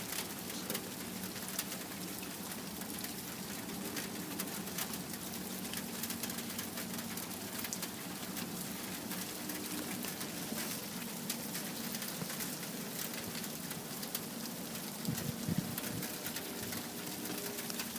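Steady rain-like patter: many small irregular ticks over an even hiss.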